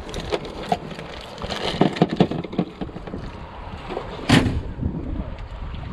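Hands handling fishing tackle, a large circle hook and leader over a boat's open storage compartment, giving a run of small clicks and knocks, then one louder knock about four seconds in, over a steady low rumble of wind on the microphone.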